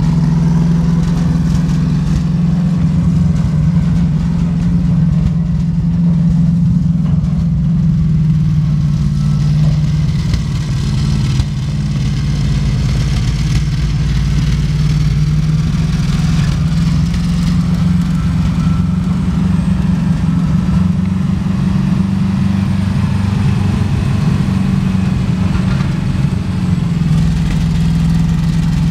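1984 Ford F700 grain truck's gasoline engine running steadily as the truck drives off and comes back around, a constant low engine hum.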